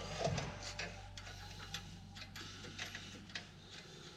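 Light, irregular metal clicks and ticks of hand tools at a truck's lower front shock mount as the bottom bolt is fitted and started. A low steady hum underneath stops near the end.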